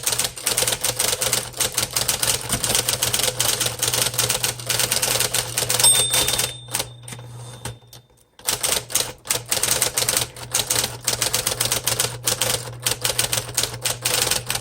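1958 Smith-Corona Electric portable typewriter being typed on quickly: a rapid stream of electrically powered keystrokes over the steady hum of its motor. A bell rings once about six seconds in, and the typing stops briefly around eight seconds before resuming.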